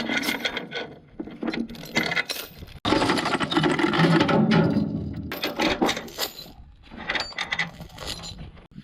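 Metallic clinking and rattling, many sharp clicks in quick succession, broken up by abrupt cuts between short segments.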